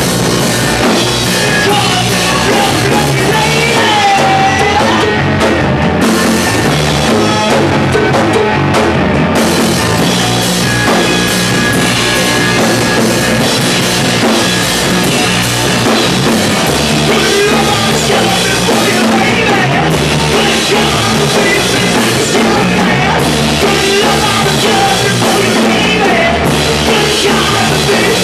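A live rock band playing loud and without a break: electric guitars, bass and a drum kit, with a singer's vocals coming in at times.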